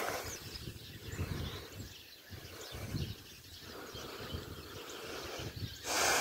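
Outdoor wind rumbling unevenly on the microphone over an open field, with a few faint bird chirps, and a sudden louder rush of noise near the end.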